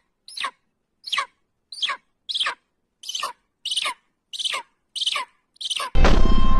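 A bird giving a short call over and over, about two a second, each note sliding quickly down in pitch. Near the end a much louder sound with many sliding tones cuts in suddenly.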